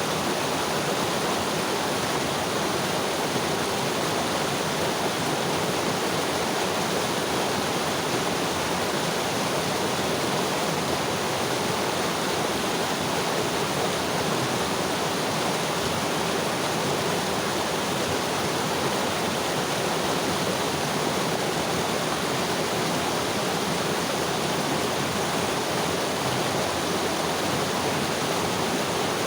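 Mountain river flowing in a steady, even rush of water.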